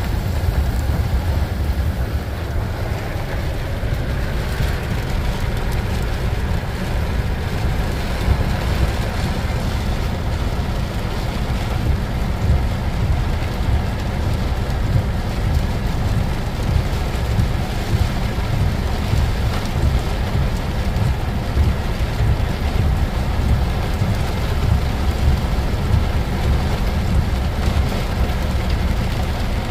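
A freight train of tank cars and covered hoppers rolling steadily past, heard from inside a car, with heavy rain falling on the car's roof and windshield.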